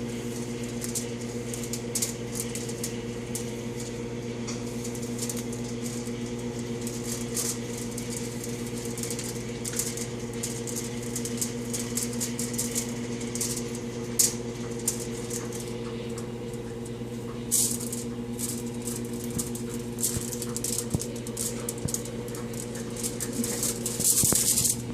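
Scattered crinkles and rustles of aluminum foil and shredded cheese being handled as cheese is pressed into the slots of a potato, over a steady low electrical hum. A louder burst of crinkling comes near the end.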